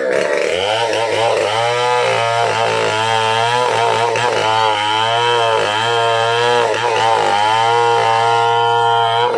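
Stihl 070 two-stroke chainsaw running at high revs and cutting wood, its pitch repeatedly sagging and recovering as the chain bites.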